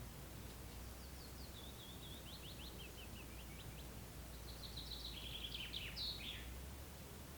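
A songbird singing two quick phrases of short, falling notes and trills, the second ending in a brief flourish. Under the song runs a steady low outdoor background hum.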